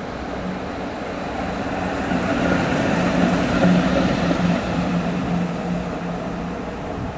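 A train locomotive passing with a steady hum, getting louder to a peak a little past the middle and then easing off.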